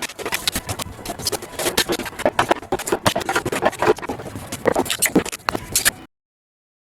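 Irregular scraping, crunching and knocking as water-saturated foam is pried and pulled out of a boat hull. The sound cuts off suddenly near the end.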